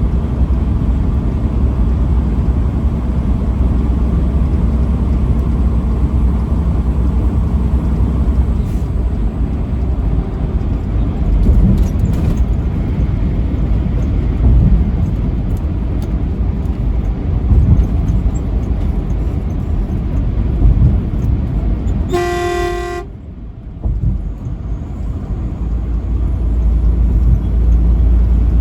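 Steady low rumble of a truck driving down the road, with one short truck horn blast about three-quarters of the way through: a single pitched tone with many overtones, under a second long.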